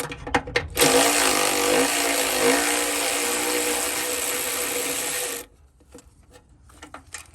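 Cordless power tool driving a 12 mm socket to remove a bolt: a brief spin near the start, then a steady motor whine with a wavering pitch for about four and a half seconds, cutting off suddenly, followed by a few faint clicks.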